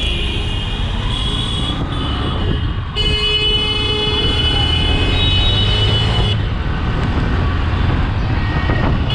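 Motorcycle riding through road traffic, its engine and wind a steady low rumble as it speeds up, with vehicle horns honking. One long honk lasts about three seconds, starting about three seconds in.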